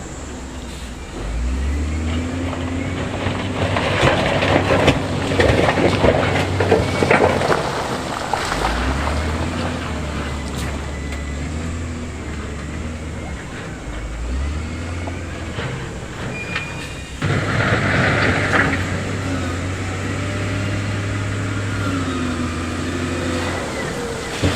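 Diesel engines of heavy earthmoving machinery running, their engine note stepping up and down several times as they work. A louder rough, rattling stretch comes about four to eight seconds in.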